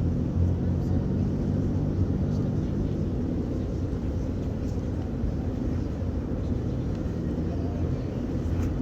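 Steady low rumble and hum of a cruise ship under way, a little louder in the first few seconds.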